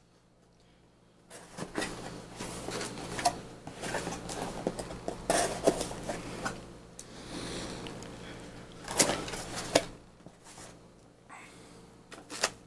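Cardboard packaging being opened by hand: a box and the GoPro camera box inside it rustling, scraping and snapping, with sharp clicks throughout. It starts after a quiet first second, and the two loudest snaps come about nine and ten seconds in; the handling is quieter after that.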